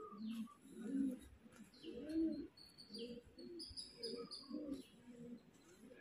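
Pigeons cooing inside a cave, a run of low, rounded coos repeating every half second to a second.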